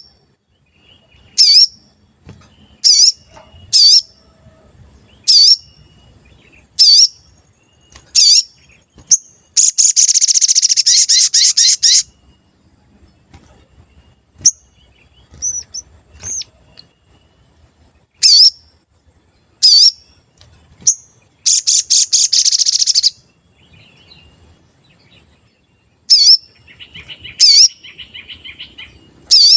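A sogon songbird calling: sharp high "cuit" chirps about every second and a half, broken twice by a loud rapid trill lasting about two seconds, and a softer chattering trill near the end.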